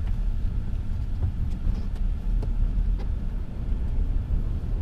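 Car driving, heard from inside the cabin: a steady low engine and road rumble, with a few faint clicks.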